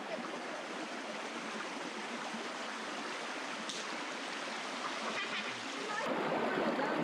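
Shallow river running over stones and a riffle: a steady rush of water that gets louder about six seconds in.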